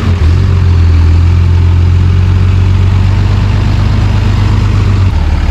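Pickup truck engine running steadily under light throttle as it pulls an empty boat trailer up the ramp, easing off slightly about five seconds in.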